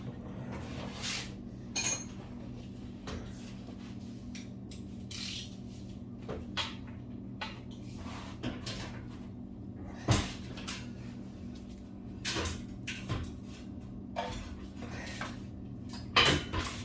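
Irregular metallic clanks, clicks and knocks of hand tools being worked on an engine, over a steady low hum. The loudest knock comes about ten seconds in, with another strong clank near the end.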